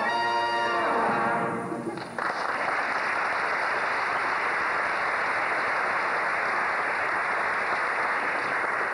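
A song's closing music dies away about two seconds in, and a theatre audience breaks into steady applause.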